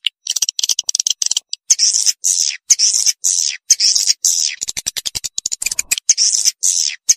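Swiftlet lure call recording: harsh, buzzy high chirps of about half a second, repeated in quick succession, with rapid runs of short clicks between them, the loudest run of clicks a little before the sixth second.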